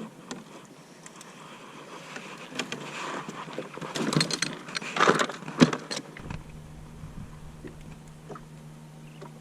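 Handling noise: rustling and a few louder knocks and clicks, then a steady low hum that starts suddenly about six seconds in.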